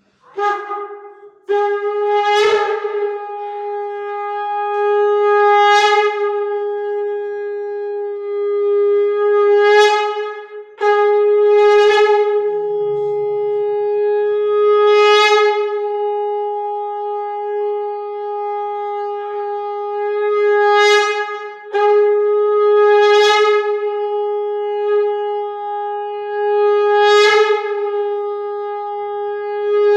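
Conch shell (shankh) blown in long, loud blasts on one steady pitch. The blasts are broken only by brief breaths about a second, eleven and twenty-two seconds in, and the tone swells louder and brighter every few seconds.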